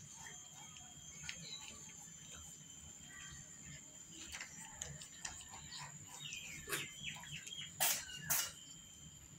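Small birds chirping over a steady high-pitched insect drone, with scattered small clicks. Two sharp, loud noises come about eight seconds in, half a second apart.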